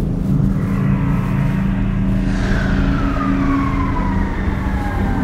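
Cinematic sound design: a deep, steady drone with a high whine that enters about two seconds in and slides slowly downward in pitch.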